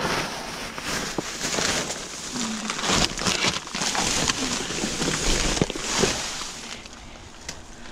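Plastic trash bags, paper and snack packaging rustling and crinkling as a gloved hand rummages through a dumpster's garbage, quieter in the last second.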